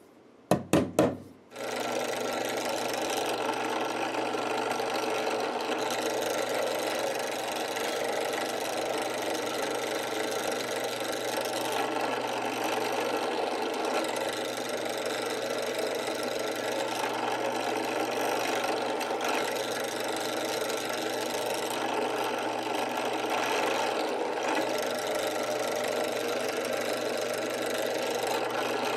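Benchtop drill press running steadily, its bit boring small side-dot holes into the edge of a guitar neck's fingerboard. Three quick loud knocks come about a second in, before the motor sound settles.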